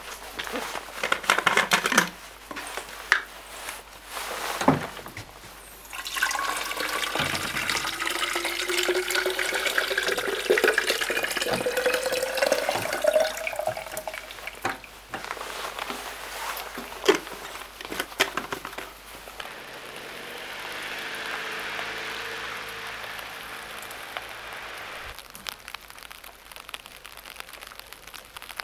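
Tap water running into a wide-mouth plastic bottle, its tone rising steadily in pitch as the bottle fills. Short clicks and knocks of handling come before and after it, and a softer steady hiss follows near the end.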